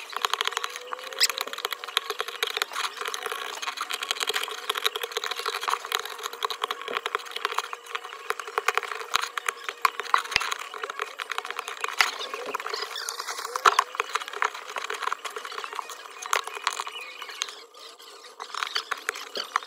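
Metal tool scraping and picking broken back-glass fragments and adhesive off an iPhone 13 Pro Max's frame: a dense, continuous run of small scratches and clicks, thinning briefly near the end.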